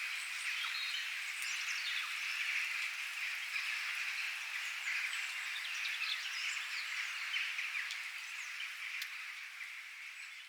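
Birds chirping and calling in quick, overlapping short notes over a dense, steady background hiss, fading out over the last few seconds.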